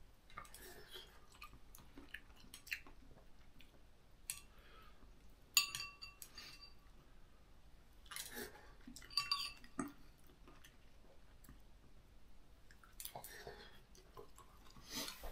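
Quiet noodle eating: chewing and slurping, with chopsticks clinking against the bowl twice, once about five and a half seconds in and again about nine seconds in, each clink ringing briefly.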